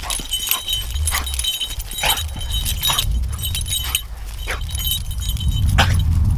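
Light metallic jingling of small metal pieces, shaken in uneven bursts about twice a second, over a low rumble.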